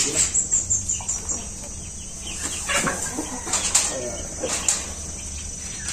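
Chickens clucking now and then, mixed with light knocks and rustles as a plastic tray is set into a hanging mesh net.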